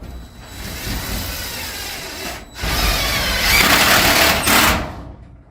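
Power drill driving a self-tapping screw through aluminum angle into a metal garage door. It runs in two spells with a short break about two and a half seconds in, and the second spell is louder.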